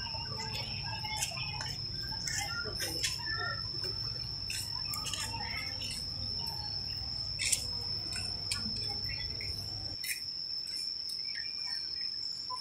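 Outdoor ambience: a steady high-pitched insect trill with short bird chirps scattered through it, over a low rumble that drops away about ten seconds in.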